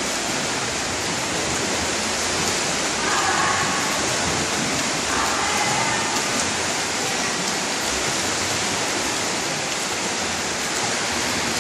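Steady splashing of several swimmers doing front crawl in an indoor pool hall, a continuous rush of water noise.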